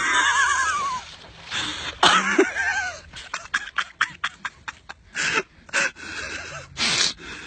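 A person laughing hard and wheezing, in high-pitched wavering fits, breaking into quick breathless bursts in the middle.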